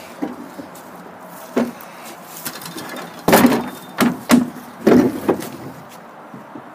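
Empty plastic wheelie bin being shoved and wheeled into place, knocking and bumping against the wooden enclosure: one knock, then a cluster of louder thumps a few seconds later.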